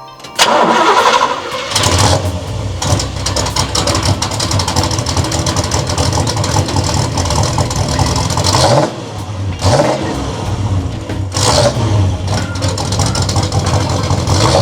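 1970 Pontiac GTO's 455 cubic-inch V8 with dual exhaust starting with a sudden loud catch about half a second in, then running and blipped on the throttle several times.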